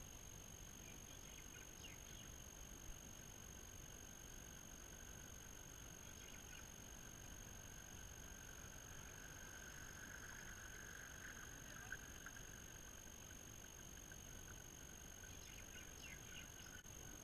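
Faint whine of a catamaran's pair of brushless electric outboard motors as the boat passes close by. It is loudest about ten seconds in and fades after.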